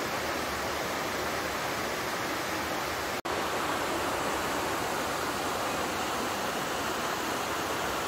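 Small waterfall splashing steadily from a rock ledge into a shallow pool: an even rush of falling water, with a momentary break about three seconds in.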